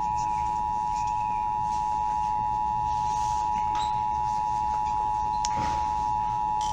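Emergency Alert System attention signal: the steady two-tone EAS alert tone (853 and 960 Hz sounded together), holding unbroken at one level. It marks a Required Monthly Test of the alert system.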